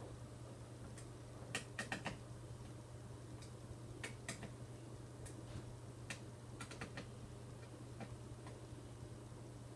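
Scattered small clicks and taps, several in quick little clusters, from hard plastic and metal headphone parts being handled during a headband replacement, over a steady low hum.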